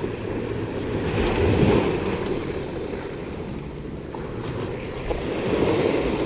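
Sea waves washing onto the shore, swelling twice about four seconds apart, with wind buffeting the microphone.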